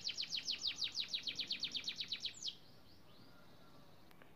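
A small songbird singing a fast trill of high, falling notes, about nine a second, that ends about two and a half seconds in with one longer falling note.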